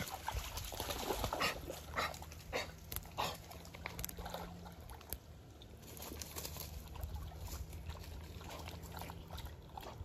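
A dog close by, panting and scuffing about on loose creek-bed gravel, with scattered short clicks and scrapes that thin out after the first few seconds.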